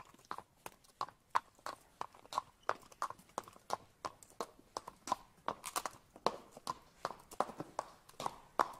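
Shod hooves of draught horses and mules clip-clopping on pavement: an uneven run of sharp clicks, about three to four a second.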